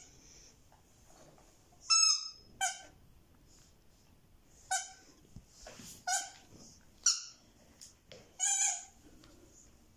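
A baby's short, high-pitched squeals, six or seven of them about a second apart, several falling in pitch.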